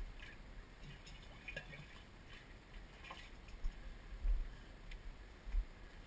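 Handling noise from a carried GoPro HD Hero action camera: scattered light clicks and rustles through the first half, then a few low thumps in the second half.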